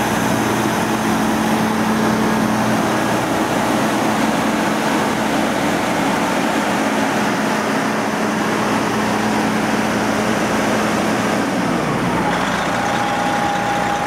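Spartan Gladiator fire engine's diesel engine idling steadily with a low hum. About twelve seconds in, a higher tone in the sound drops slightly in pitch and holds.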